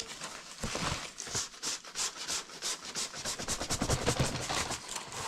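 Packaging being handled and opened by hand: a fast run of short scratching, rubbing strokes, several a second.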